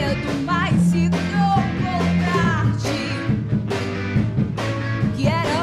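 Rock band playing live: drums, bass guitar and electric guitar, with a melodic lead line bending up and down in pitch.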